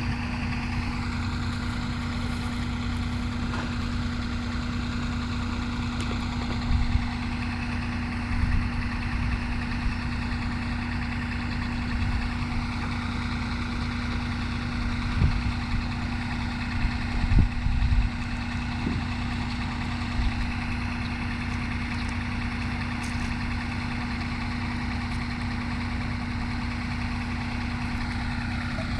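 Engine idling steadily with a constant hum, with a few short low bumps.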